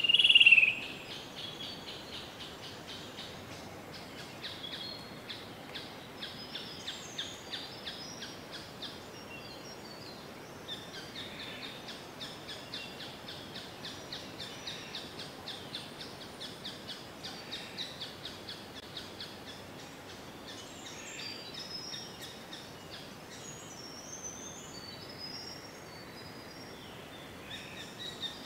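Forest ambience of birdsong: a loud downward-sliding call right at the start, then a steady fast pulsing trill with scattered higher chirps over a faint hiss.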